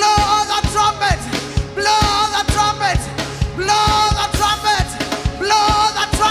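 Upbeat live band music: a steady drum-kit beat under a melodic line phrased in repeated swells about every two seconds, with pitch bends at the ends of the phrases.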